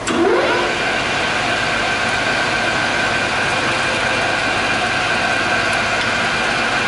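SuperMax 13" x 40" gap bed engine lathe, driven by its 3 hp two-speed three-phase motor, spinning up. It starts with a quick rising whine, then the spindle and gearing run at a steady, even hum.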